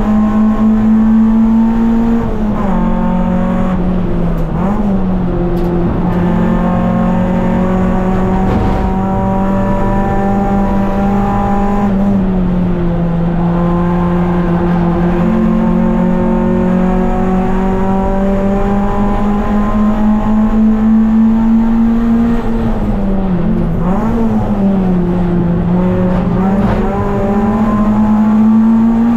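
Race car engine heard from inside the cabin while lapping on track, running hard with a steady note. The pitch slowly climbs on the straights and dips briefly several times, around two seconds in, near the middle and twice in quick succession near the end.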